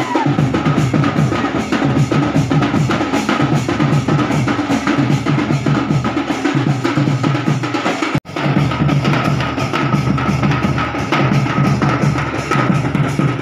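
Fast, dense drumming from a Chhattisgarhi folk drum band playing for the Raut Nacha dance, with a steady high tone held over it. The sound cuts out for a moment about eight seconds in.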